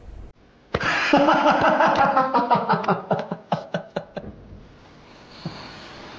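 Several men laughing loudly together, the laughter breaking into short bursts and dying away after about three and a half seconds.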